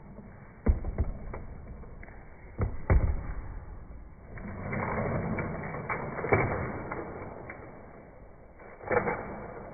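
Small toy monster truck knocked down and pushed along a slatted bamboo tabletop: a few sharp knocks in the first three seconds, then a rattling, scraping stretch as its wheels run over the slats, and another knock near the end.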